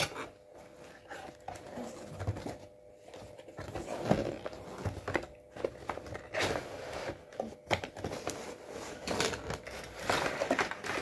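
Cardboard box being opened by hand: the flaps and an inner cardboard tray scrape, rustle and click irregularly as they are pulled open and slid out.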